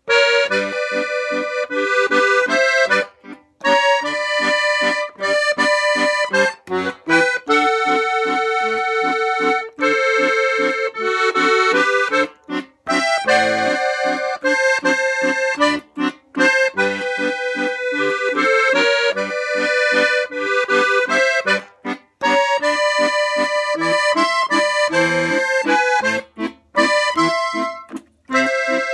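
Piano accordion played solo: a melody in held notes over short, regularly repeated bass notes, with a few brief pauses between phrases.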